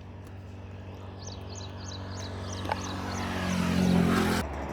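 A motor vehicle coming along the road, growing steadily louder and then cutting off suddenly near the end. A bird gives a quick run of about eight repeated high chirps in the middle.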